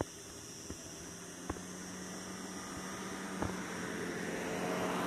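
A steady engine hum with a low tone, growing gradually louder as it approaches, with a few faint clicks.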